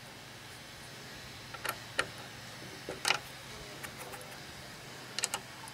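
Scattered small metallic clicks and ticks, about eight, some in quick pairs and the loudest about three seconds in, as a hex wrench tightens the set screw of a Ryobi 9-inch bandsaw's upper thrust bearing. A faint low hum runs underneath.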